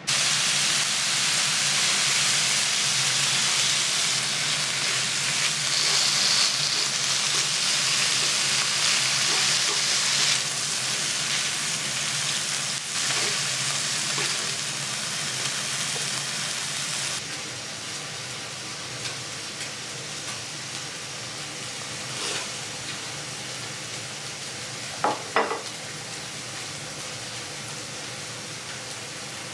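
Meat sizzling on a hot iron griddle plate, a steady frying hiss that starts abruptly and dies down somewhat about halfway through. Near the end there are two short, sharp sounds.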